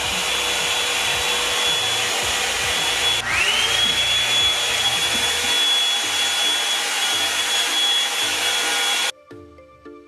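Revlon One-Step round-brush hair dryer running: a steady rush of air with a high motor whine. About three seconds in the whine dips and climbs back up to pitch, and near the end the dryer sound cuts off suddenly, giving way to soft background music.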